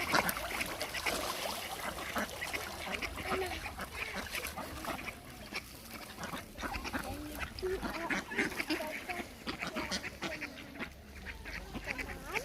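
A group of ducks quacking, with many short calls overlapping throughout.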